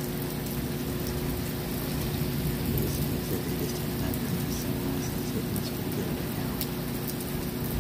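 Steady rain falling, with scattered drops ticking close by and a low rumble underneath.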